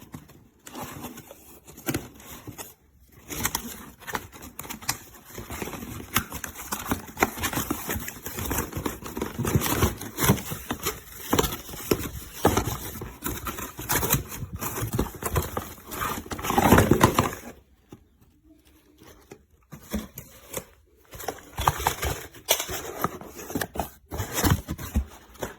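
Packaging being handled and unpacked: rustling, crinkling and scraping, loudest about two-thirds of the way in. Then comes a few seconds of near quiet before more handling near the end.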